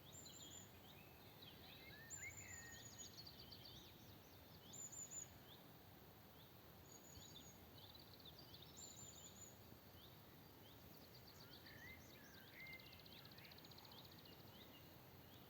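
Faint birdsong from several birds over a soft outdoor background hiss: a short high phrase repeats roughly every two seconds, with scattered chirps and trills lower down.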